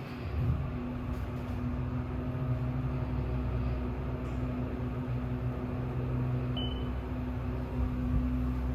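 Passenger/freight elevator car travelling upward, a steady mechanical hum with a constant low drone. A single short high beep sounds about two-thirds of the way through.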